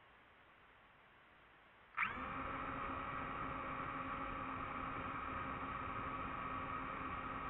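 DJI FPV drone's electric motors and propellers starting up suddenly about two seconds in, then spinning at idle with a steady whine of several tones while the drone sits on the ground before takeoff.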